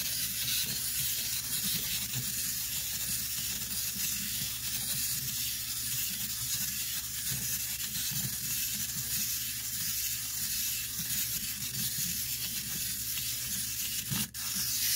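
Plastic wind-up toy's clockwork spring motor whirring steadily as the toy dances on a wooden tabletop. A short knock near the end as a hand picks the toy up.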